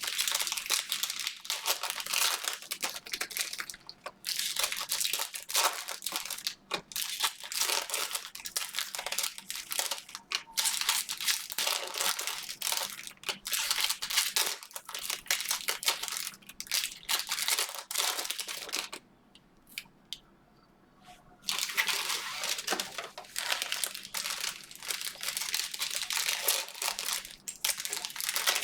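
Plastic trading-card pack wrappers and box film crinkling and tearing as packs are opened, a continuous crackling rustle with a short pause about two-thirds of the way through.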